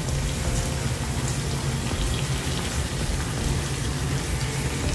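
Onion, tomato and herb masala frying in oil in a pot, a steady sizzle.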